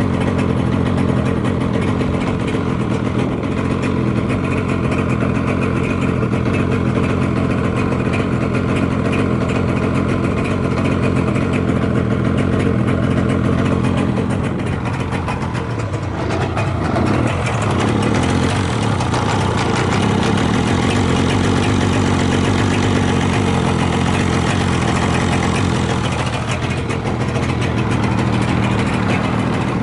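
Yamaha RZ250R's two-stroke parallel-twin engine running at idle, revved briefly about halfway through and settling back. It picks up the revs cleanly with no abnormal noise, which the seller takes as a sign of good health after long storage.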